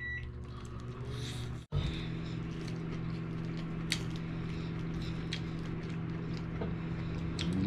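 Steady low electrical hum of a running household appliance, with a few faint clicks. The hum cuts out for an instant about a second and a half in, then carries on unchanged.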